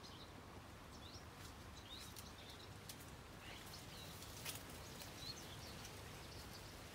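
Faint outdoor ambience with small birds giving short, scattered high chirps, about half a dozen over a few seconds.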